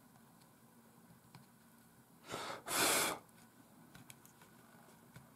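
A person's breath: a short breath in followed by a sharper, louder breath out, about two and a half seconds in, with a few faint small ticks around it.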